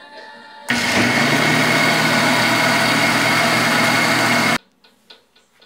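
Philips Walita blender motor running at speed for about four seconds, blending a liquid batter of milk, eggs and grated cheese; it starts just under a second in and stops suddenly. Faint background music before and after.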